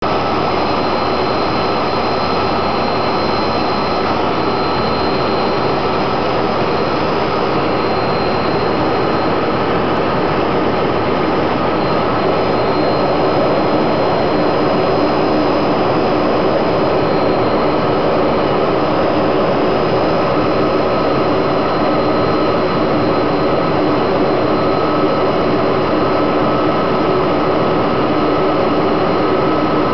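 Jet Provost T5's Viper 202 turbojet heard from inside the cockpit in flight: a steady, loud rush of engine and airflow noise with a few thin, steady whining tones over it.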